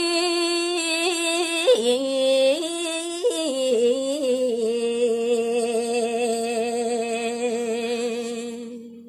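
A woman sings a Balinese gaguritan in pupuh (tembang) style, unaccompanied, drawing out the last syllable of a line in a long melisma. The pitch steps and ornaments for about the first four seconds, then settles on a long, slightly wavering held note that fades away just before the end.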